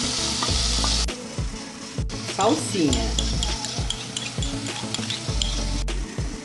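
Chopped onion and garlic sizzling in hot olive oil in a pot, loudest in the first second as the onion goes in. A wooden spoon stirs and scrapes through it, with many small clicks against the pot.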